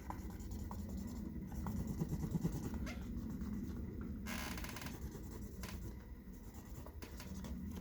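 Faint rustling and scratching as a shipping package and its packing material are handled, with a few light clicks and a short scratchy rustle a little over four seconds in.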